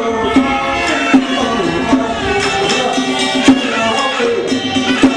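Traditional Taiwanese temple ritual music: a melody of held, pitched notes over sharp percussion strikes about once a second.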